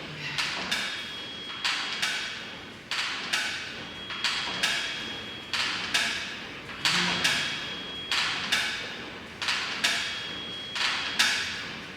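Exercise machine knocking in a steady rhythm, two or three sharp clacks about every second and a half, one for each repetition of the movement.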